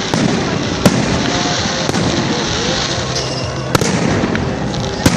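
Fireworks display: sharp bangs of bursting shells, four loud ones at irregular intervals over about five seconds, over a steady crowd chatter.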